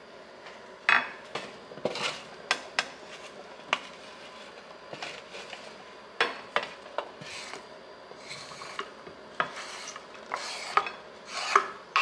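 Kitchen utensils scraping and knocking against a ceramic bowl: a spatula pushes roasted chickpeas and carrots into the bowl, then chopped herbs and sliced radishes are scraped off a wooden cutting board into it, in irregular short scrapes and sharp knocks.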